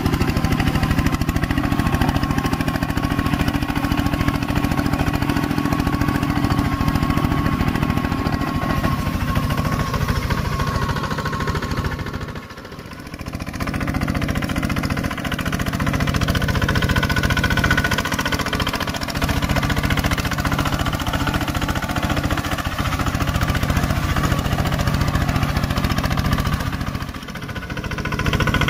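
Two-wheel walking tractor's single-cylinder diesel engine running steadily with a fast, even chugging beat as it ploughs through paddy mud. The sound drops away briefly twice, about 12 seconds in and near the end.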